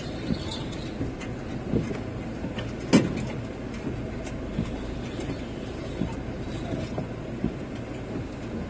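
Van cabin noise while manoeuvring slowly: a steady low engine and road rumble, with scattered clicks and knocks. The loudest knock comes about three seconds in.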